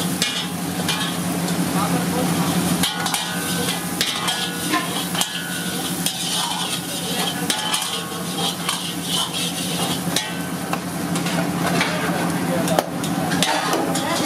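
Chicken curry sizzling and bubbling in a blackened pan on a gas burner, over a steady low hum, with scattered clicks and clatter of kitchen utensils.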